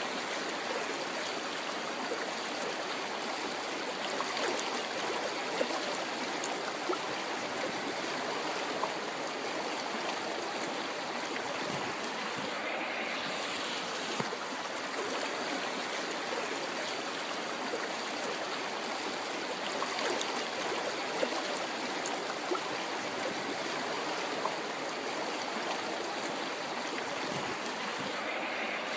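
River water flowing steadily, with small brief splashes here and there.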